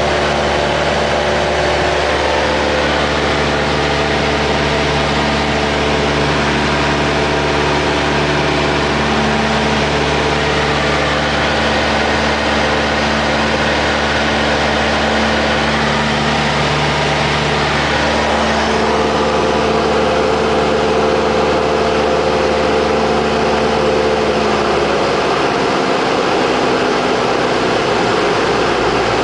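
Cessna 172P's four-cylinder Lycoming engine and propeller running steadily, heard from inside the cabin over a rush of air noise. The engine note shifts about two-thirds of the way in and again near the end.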